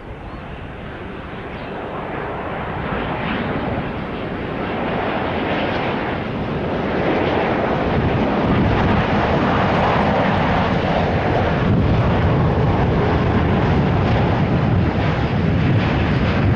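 Arriving KLM Boeing 787-9 jetliner's jet engines and airframe noise: a steady roar that grows louder over the first half as the plane approaches, then stays loud.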